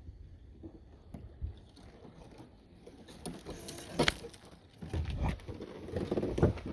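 Wind buffeting the microphone on a fishing kayak, then a run of knocks and rattles from about three seconds in. The sharpest knock is about four seconds in, with another near the end.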